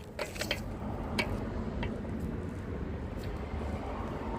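A few scattered light clicks and knocks over a steady low background rumble.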